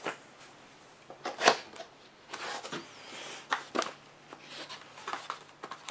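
Cardboard and plastic packaging being handled as an accessory tray with plastic-wrapped cables is lifted out of a laptop box. Several sharp taps and knocks, the loudest about a second and a half in, with a stretch of rustling and scraping in the middle.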